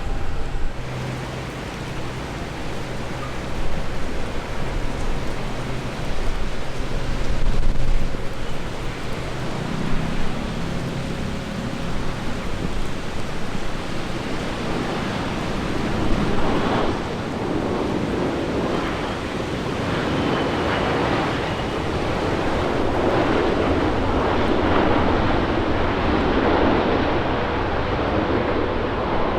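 Boeing 787-8 jet airliner coming in to land: a broad rushing roar of engines and airframe that builds from about halfway through, mixed with wind on the microphone.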